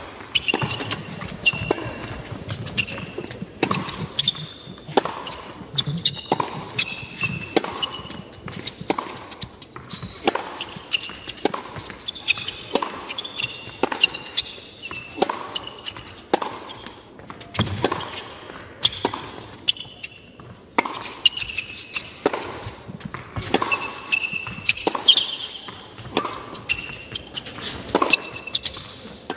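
Tennis rally on an indoor hard court: racket strings striking the ball and the ball bouncing, one sharp hit roughly every half second to second, with short high squeaks between the shots.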